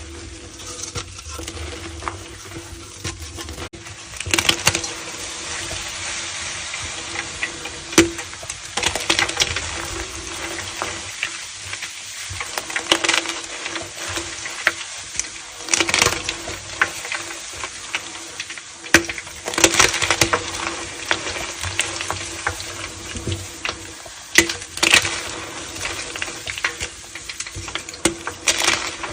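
Close-miked crunching and crackling as a soft, crumbly material is crushed, in louder bursts every few seconds, over a faint steady hum.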